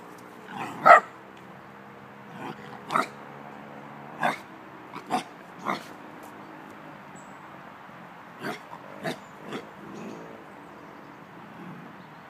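Belgian Tervuren dog barking: about nine short barks, the loudest about a second in, a few more spaced a second or so apart, then a quicker group of barks past the middle.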